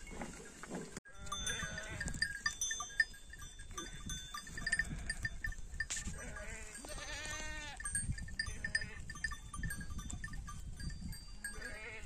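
A flock of sheep and goats bleating several times, with a cluster of calls in the middle, over the scattered clinking of the bells they wear.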